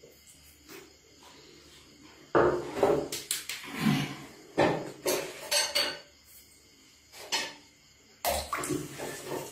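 Water splashing and sloshing in a plastic basin as baby monkeys move about in it, with clattering knocks against the tub. It comes in irregular bursts, starting about two seconds in, with a pause and a louder flurry near the end.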